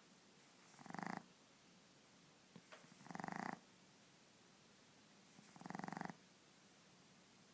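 A Boston Terrier puppy snoring: three fluttering snores about two and a half seconds apart, each lasting about half a second.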